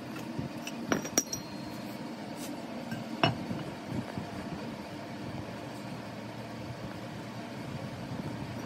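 Sharp metallic clinks of steel truck tie rod end parts and a steel pipe knocking against a steel anvil block. There are two close together about a second in, the second with a brief ringing, then another just after three seconds and a fainter knock at about four. A steady low hum runs underneath.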